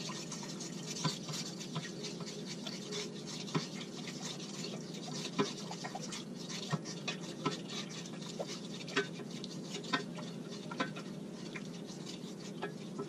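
A spoon stirring sugar into coconut milk in a stainless steel saucepan, scraping and clicking against the pan at irregular intervals until the sugar dissolves. A steady low hum runs underneath.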